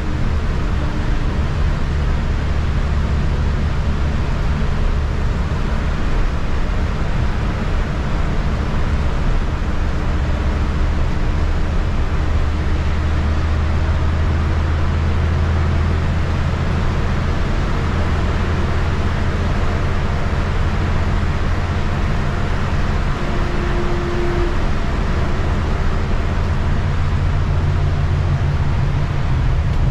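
Interior of a city transit bus driving at highway speed: a steady low engine and drivetrain drone under constant tyre and road noise on wet pavement.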